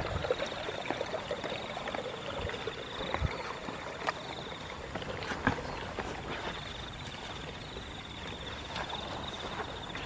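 An insect trilling steadily at a high pitch, breaking off for about a second midway, over soft rustling and a few light knocks of footsteps through the grass.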